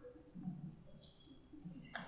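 Faint room tone with a single soft click near the end, from a computer mouse.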